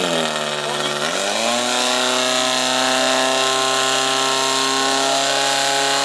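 Portable fire pump engine running hard as it pumps water into the attack hoses. Its pitch dips briefly, climbs about a second in, then holds at high, steady revs.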